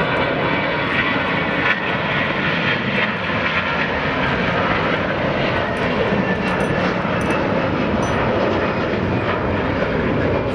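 Airbus A321-211's twin CFM56 turbofans at takeoff thrust as the jet lifts off and climbs away: a steady, loud jet noise with no pause.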